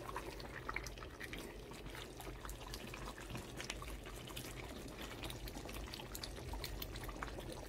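Egusi soup simmering in a pot on a gas stove, bubbling with many small irregular pops over a steady low hiss.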